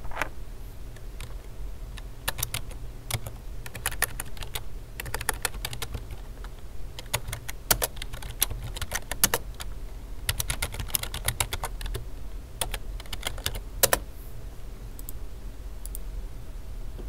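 Typing on a computer keyboard: short runs of key clicks with brief pauses between them, over a steady low hum.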